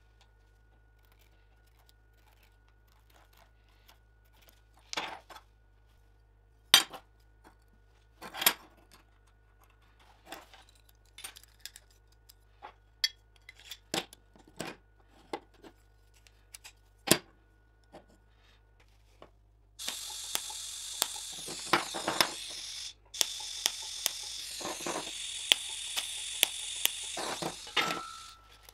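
A steel toggle clamp and small metal parts clicking and clinking as they are handled and set down on a steel welding table, with a few sharp knocks among them. In the last third a steady, loud hiss runs for several seconds and is broken once by a short gap.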